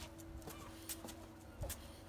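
A small dog's claws clicking faintly on concrete paving slabs as it walks slowly, a couple of sharp taps about a second apart, over a faint steady hum and low rumble.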